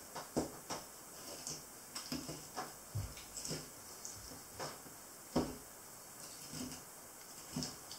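Irregular light clicks and soft knocks as a flexible filleting knife works along a smoothhound's cartilage spine on a wooden table, with one sharper knock a little past halfway.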